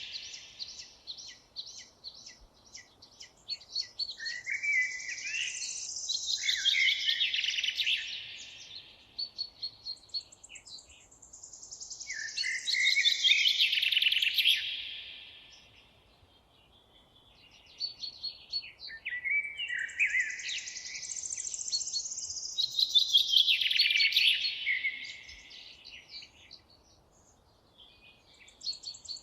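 Songbirds singing: long, warbling phrases that sweep up and down come roughly every eight seconds, with quick short chirps and ticks in between.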